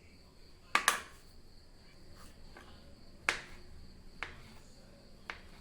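Sharp, scattered knocks of kitchen utensils, five in all: a quick pair about a second in, then single knocks a second or so apart. A steady high-pitched insect chirring runs behind them.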